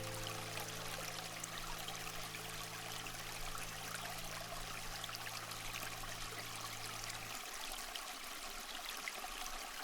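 Steady trickling, stream-like water noise, with a low held synth drone underneath that stops abruptly about seven seconds in.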